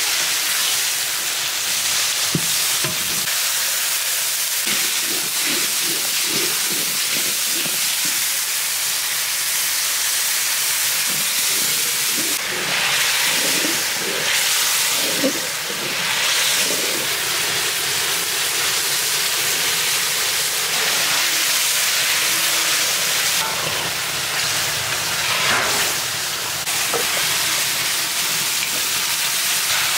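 Onions with wet ginger, garlic and cumin paste sizzling in hot oil in a large iron karahi: a loud, steady frying hiss. A metal spatula stirs and scrapes against the pan in short repeated strokes, mostly in the first half.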